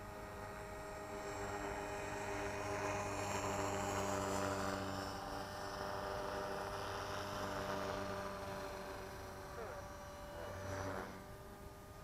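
Electric Tarot 450 RC helicopter's motor and rotor humming steadily overhead, getting louder and fading as it flies around. A quick swoop in pitch comes near the end, after which it drops quieter.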